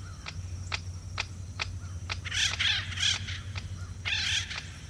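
Acorn woodpeckers: steady sharp tapping, about two taps a second, then harsh squawking calls in two bouts in the second half.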